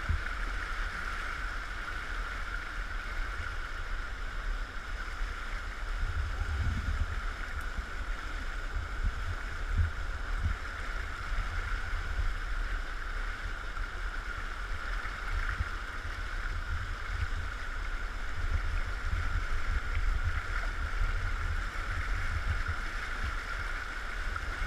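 Towing motorboat running at a steady pitch, with water rushing past the hull and wind buffeting the microphone in irregular low thumps.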